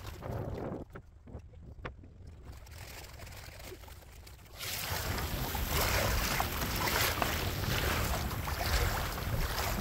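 Wind buffeting the microphone and water moving around a kayak, with a couple of faint knocks in the first two seconds; the wind noise jumps suddenly much louder about halfway through.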